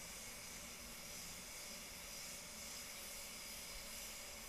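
Steady, faint hiss of a DeVilbiss GTI Pro HVLP spray gun spraying solvent basecoat in a spray booth, mixed with the booth's moving air.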